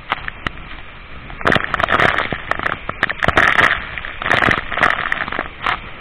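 Waterfall crashing into its pool at close range, a steady rushing of water. Spray and drops strike the phone's microphone as sharp crackles and loud surges from about a second and a half in.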